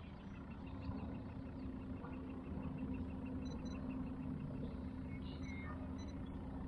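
A faint, steady low motor hum, with a faint rapid ticking of about five ticks a second over the first few seconds.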